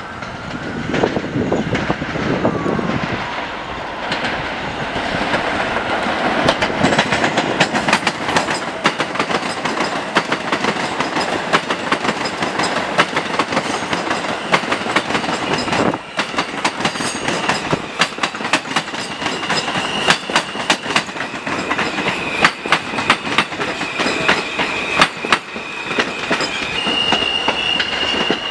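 New York City Subway R160A train running past close by, its wheels clattering over the rail joints and switches in dense, rapid clicks. A high, thin wheel squeal comes in over the clatter in the second half.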